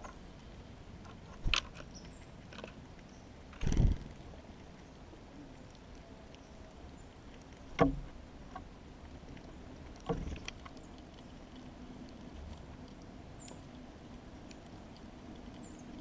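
Birds at a window feeder: four sharp knocks, the second a quick double, from birds landing on or pecking at the feeder, with a few faint, short, high chirps between them.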